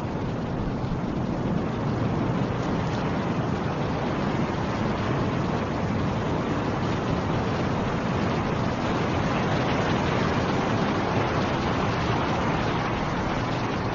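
Snowstorm wind rushing steadily, swelling slightly over the first couple of seconds.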